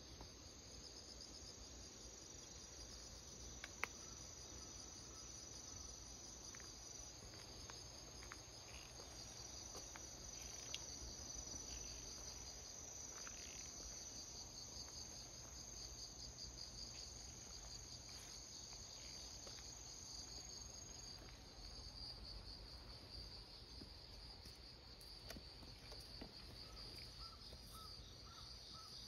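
Faint, steady chirring of insects in garden undergrowth, a high pulsing trill with a thinner steady high tone that stops about two-thirds of the way through.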